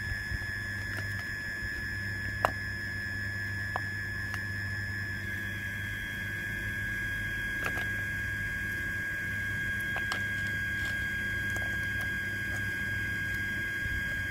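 A few light, sharp clicks and taps from a plastic float switch and its cable being handled, over a steady low hum and a thin high whine.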